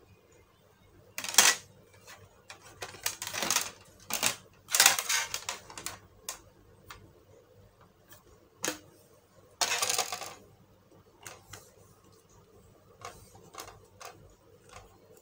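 Hands handling the plastic and metal parts of a laptop being reassembled: a string of sharp clicks and taps, with four louder scraping, clattering rushes in the first ten seconds.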